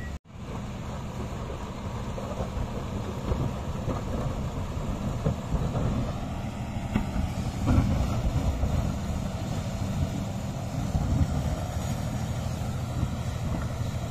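Komatsu D155A bulldozer's diesel engine running steadily under work, a deep steady hum. The sound cuts out for an instant just after the start, and it swells briefly about eight seconds in.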